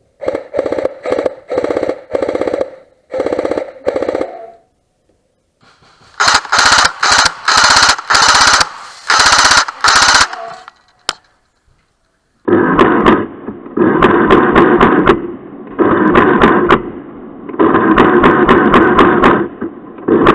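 Airsoft electric guns (AEGs) firing full-auto bursts: rapid mechanical clatter in short bursts of about a second, then longer bursts in the second half, the tone shifting between groups.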